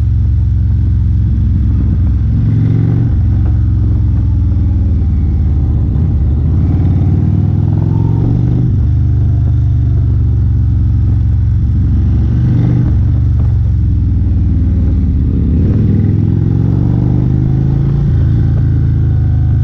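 Indian cruiser motorcycle's V-twin engine running while riding, heard from the rider's seat, its pitch climbing and dropping several times as the revs change.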